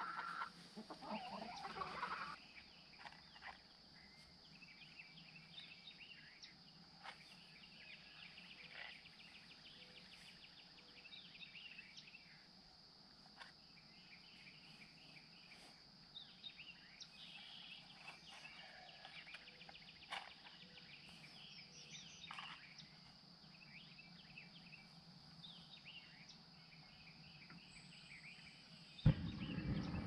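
Chickens clucking for the first two seconds, then a quiet stretch with scattered faint bird calls. About a second before the end, a propane weed torch lights with a sudden loud whoosh and keeps burning.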